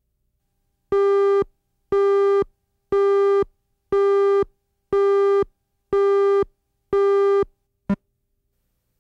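Countdown beeps on a commercial's tape slate: seven identical electronic tones, each about half a second long and one a second, then a single very short blip near the end.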